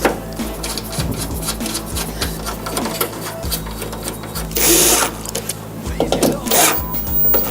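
Power drill-driver working the fixings of a van's rear door latch, running in short rattling spurts with a louder burst about halfway through.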